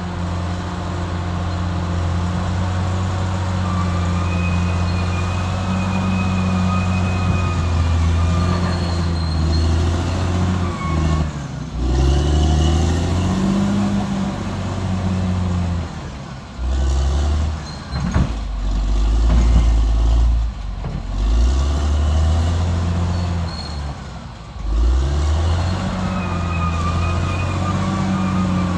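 Caterpillar D6R XL bulldozer's diesel engine working under changing load, its pitch rising and falling as the revs change, with brief dips around the middle and again near the end. A faint high whine comes and goes over it.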